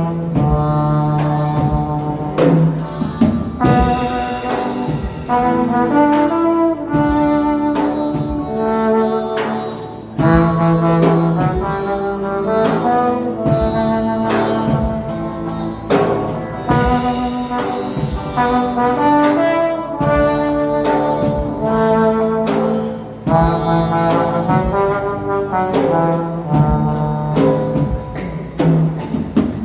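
Trombone playing a gospel praise melody in held and moving notes over a backing track with a steady beat.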